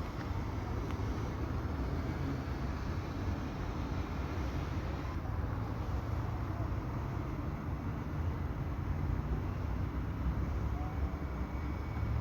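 Steady low outdoor rumble with a faint hiss, unchanging throughout.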